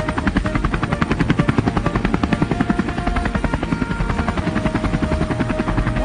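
Cartoon machine sound effect: fast, even mechanical chopping at about ten beats a second, with a faint steady tone running through it.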